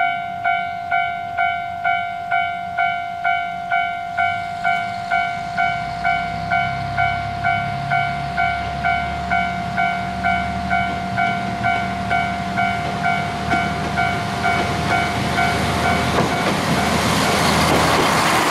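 Level crossing warning bell ringing steadily about twice a second while an Akechi 10 type diesel railcar pulls away and its engine rumble builds. Near the end the railcar passes close by with a loud rush of engine and wheel noise that drowns out the bell.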